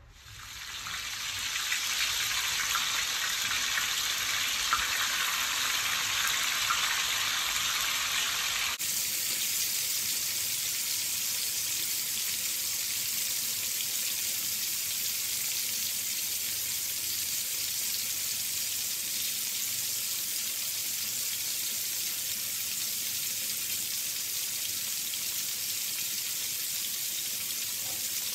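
Fish steaks frying in hot oil in a wok, a steady sizzle. For the first several seconds it is a louder crackling sizzle; about nine seconds in it switches abruptly to a smoother, higher, even hiss.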